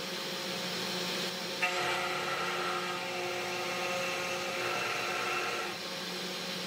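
A 3018 Pro Max desktop CNC's spindle motor running with a steady whine while milling grooves in an acrylic block. About a second and a half in, the end mill enters the acrylic and a stronger cutting sound of several tones joins the whine, fading near the end as the bit comes back up.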